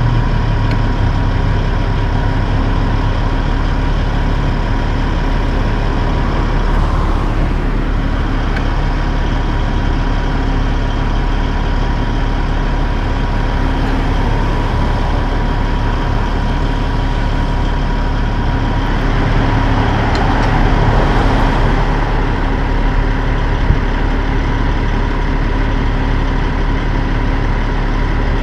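Peterbilt 379 car-carrier truck's diesel engine running at a steady idle while the trailer's hydraulic decks are repositioned. A thin steady whine rides over the engine and stops about two-thirds of the way through.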